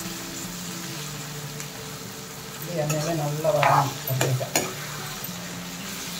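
Oil sizzling in a kadai as a metal spatula stirs whole brinjals, onions and tomatoes frying in it. About three seconds in, the spatula scrapes and knocks against the pan louder for a second or so, with a few sharp strikes.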